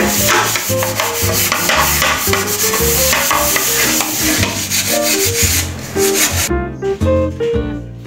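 A metal pot scrubbed by hand at the sink, a fast rasping rub, over background music with a bass line. The scrubbing stops abruptly about six and a half seconds in, leaving only the music.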